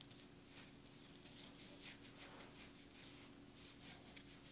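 Faint, crackly rustling of fingers working through curly hair, parting it into sections, in a quick irregular run of soft scratches. A faint steady hum sits underneath.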